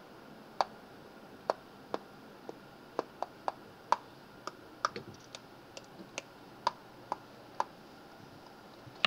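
Computer mouse clicking: about eighteen separate, sharp clicks at uneven spacing, roughly two a second, stopping about a second and a half before the end.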